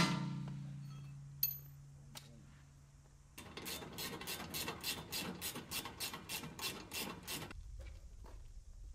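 A low hum fading out over the first three seconds, then a fast, even run of metallic clicks, about five a second, for some four seconds before stopping: hand work on the metal parts of a sawmill track during assembly.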